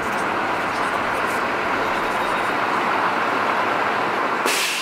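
Steady roar of city street traffic, an even noise without any clear engine note, turning brighter and hissier near the end.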